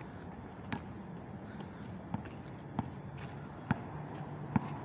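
A basketball bouncing on asphalt during a pickup game, with about five sharp, irregularly spaced bounces, the loudest near the end. Players' footsteps and a steady outdoor background can be heard under it.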